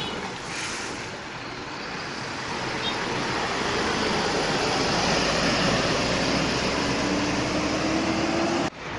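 Road traffic noise that swells as a heavy vehicle approaches, with a low engine hum and a faint, slowly rising engine tone in the last few seconds. The sound cuts off abruptly near the end.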